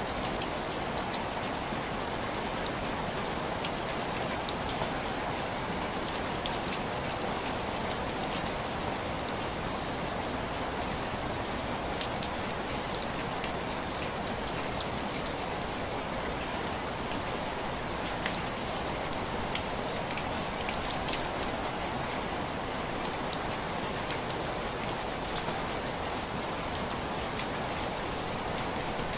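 Steady rain pattering on window glass, with many separate drop taps scattered through the even hiss of the downpour.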